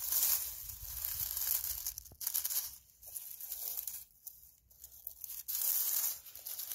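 Dry oak leaves and pine needles crackling and rustling as a hand brushes through them, in several bouts with short pauses between.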